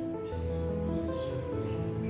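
Background music: a gentle melody of held notes, with plucked string instruments.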